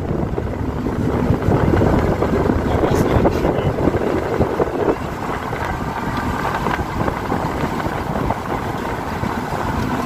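Steady road and wind noise from a moving car, with wind buffeting the microphone.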